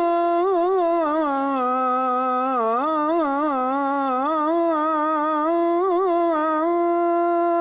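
A muezzin chanting the dawn call to prayer (adhan), drawing out the phrase 'ashhadu an la ilaha illa Allah' in one long melismatic line. The line turns in fine ornaments, dips lower in the middle and settles on a long, steady held note near the end.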